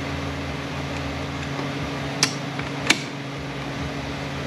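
Steel snap ring being worked into its groove on a transmission clutch housing, giving two sharp metallic clicks about two-thirds of a second apart. A steady machine hum runs underneath.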